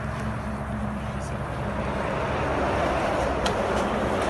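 Road traffic: a vehicle's engine running with a steady low hum, then tyre and road noise swelling as another vehicle approaches.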